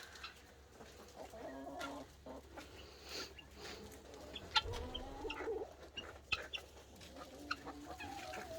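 Domestic hens clucking quietly, with scattered short calls and a few small clicks and rustles.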